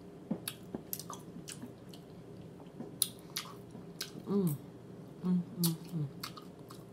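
A person chewing food close to the microphone, with wet mouth smacks and clicks throughout. There is a short falling hum about four seconds in and three brief low 'mm' hums between five and six seconds.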